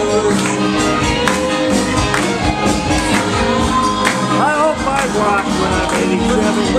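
Loud dance music with a singing voice and a steady beat, with a tambourine-like jingle in the mix.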